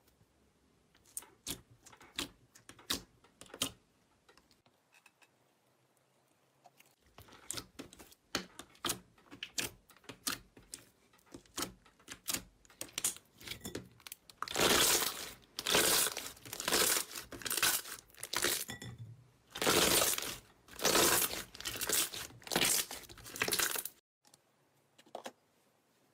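Crunchy slime being pressed and squeezed by hand, crackling and popping with sharp clicks. It starts as scattered single clicks, thickens into dense crackling after a short pause, then turns into louder crunching squelches about a second long each.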